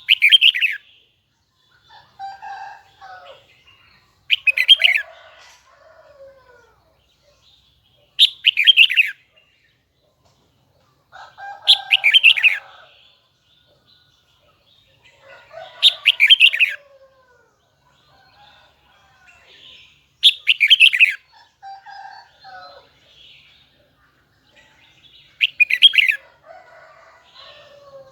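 Red-whiskered bulbul of the Huế song strain singing. Seven loud, short, high-pitched phrases come about every four seconds, with softer chattering notes between them.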